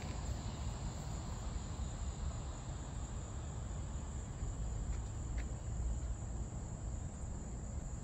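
Crickets chirping in a steady high trill over a low, uneven rumble.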